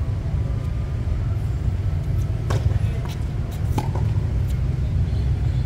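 A tennis ball struck by a racket and bouncing on a hard court: a few sharp knocks between about two and a half and four and a half seconds in, over a steady low rumble.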